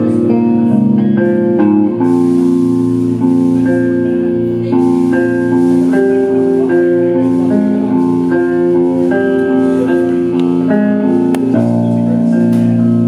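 A band playing an instrumental passage of a song: several sustained pitched instruments moving through chord changes.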